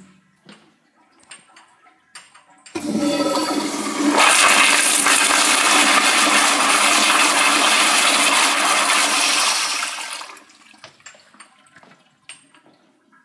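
Crane toilet flushing: a sudden loud rush of water about three seconds in, growing fuller after a second, running steadily for about six seconds, then dying away to a faint trickle. There are a few faint clicks before and after.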